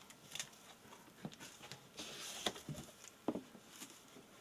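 Cardboard shipping carton being opened by hand: flaps pulled back and folded with scrapes, snaps and light knocks, a longer rustling scrape of cardboard about two seconds in.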